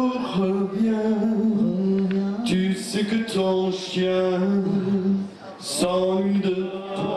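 A man singing a French love song into a handheld microphone, holding long, steady notes, with a brief break for breath about five seconds in.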